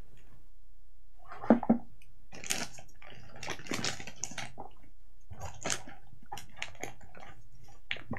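Protective plastic wrapping around a drone being crinkled and rustled by hands, in irregular bursts, with a brief bump about a second and a half in as the carrying case is handled.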